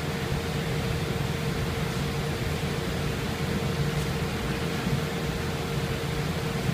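Steady background room noise: an even hiss over a low rumble, with a faint steady hum.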